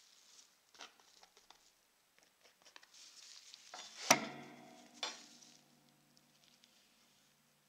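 Steel palette knife scraping and picking up oil paint on a palette, then a sharp knock about four seconds in that rings on for a few seconds, with a lighter knock a second later.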